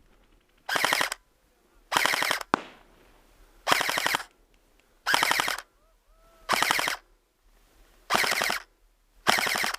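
Airsoft gun firing full-auto in seven short bursts of rapid shots, each about half a second long and about a second and a half apart.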